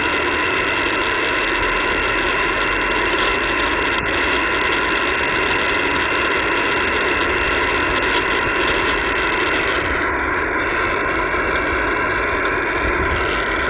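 Steady hiss and static from an HF amateur radio receiver tuned to single sideband, filling the narrow voice band.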